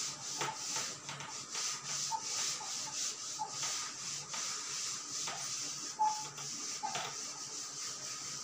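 Cloth duster rubbing back and forth across a chalkboard in repeated strokes, wiping off chalk writing.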